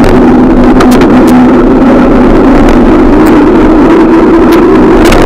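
Loud, steady riding noise from a camera carried on a moving bicycle: wind buffeting the microphone and road rumble, with a steady hum and scattered sharp clicks.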